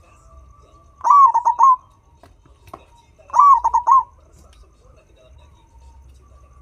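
Turtledove cooing: two phrases of several quick coos each, a little over two seconds apart.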